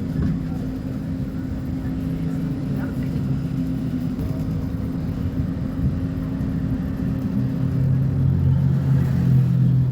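Scania K270IB bus diesel engine running steadily, getting louder and deeper about eight seconds in as it takes more load.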